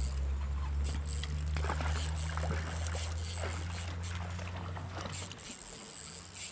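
Low steady hum that cuts off about five seconds in, with faint distant voices and a thin high whine behind it.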